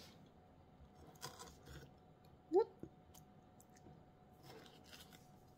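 Chef's knife cutting through crisp bok choy stalks on a cutting board: a few scattered soft crunching cuts and light knocks. The loudest sound is one short rising squeak about two and a half seconds in.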